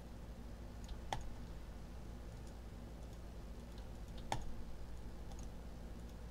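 Light clicking and tapping on a computer keyboard and mouse, with two sharper clicks about a second in and past the fourth second, over a steady low hum.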